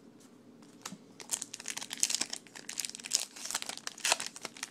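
Wrapper of a baseball card pack torn open and crinkled by hand: a dense run of crackles and rips starting about a second in.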